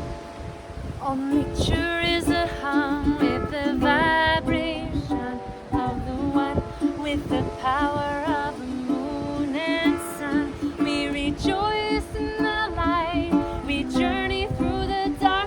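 Ukulele strumming a steady accompaniment while a woman's voice sings a flowing melody, coming in about a second in.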